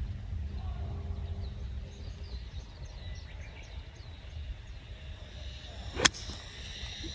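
A golf club strikes the ball once, a single sharp crack about six seconds in; the shot was struck slightly fat by the golfer's own reckoning. Before it, birds chirp over a steady low rumble of wind.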